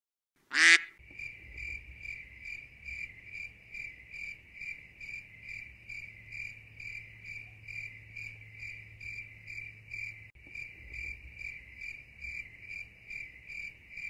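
A sharp click about half a second in, then a cricket chirping steadily, about three high chirps a second.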